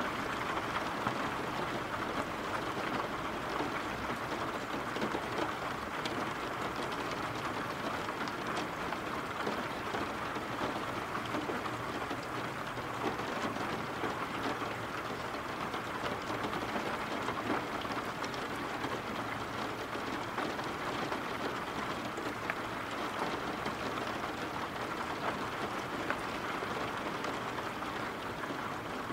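Steady rainfall: an even hiss of rain with scattered drop ticks.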